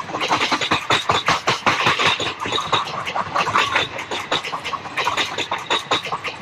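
Indian Railways sleeper coaches rolling past close by at slow speed. Their wheels clatter rapidly over the track, with short high squeaks mixed in.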